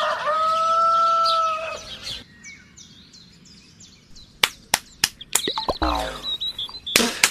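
A rooster crowing, its last note held level for about a second and a half. Faint bird chirps follow, then from about four seconds in a series of sharp clicks or taps.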